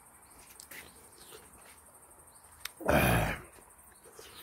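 Faint bird chirps in the background, with a click and then a brief loud rush of noise about three seconds in.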